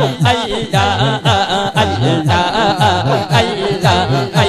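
A man singing Punjabi devotional verse (naat) through a microphone and PA, in a wavering, ornamented line without instruments. Under the voice runs a low chanted line that repeats about twice a second.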